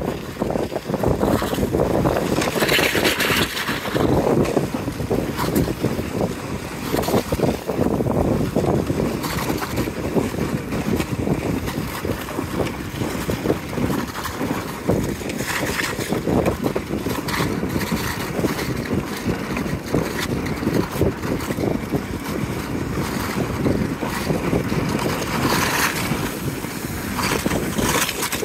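Ski patrol rescue toboggan sliding over snow while towed by a skier, a continuous rushing scrape of the sled on the snow, with wind buffeting the microphone.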